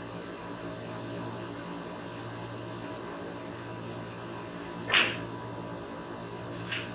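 Snooker shot: one sharp click about five seconds in as the cue ball is struck into a red, then a couple of fainter clicks near the end, over a steady electrical hum.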